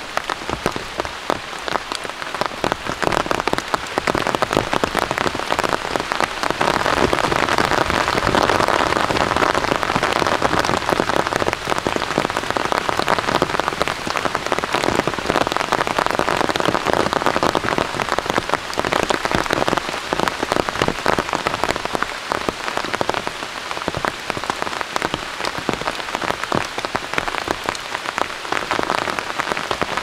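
Steady rain falling, a dense patter of drops, a little louder through the middle.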